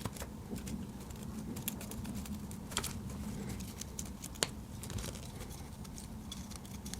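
Scattered small clicks and taps of the plastic parts of a correction tape pen being handled and fitted together, with one sharper click about four seconds in.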